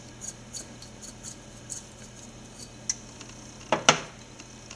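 Glass salt shaker being shaken over a pan of water, giving a run of faint light ticks. It is then set down on the stovetop with one sharper clack near the end.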